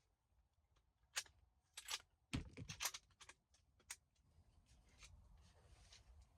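Faint handling noise, a string of short clicks and rustles about one to four seconds in, then low hiss.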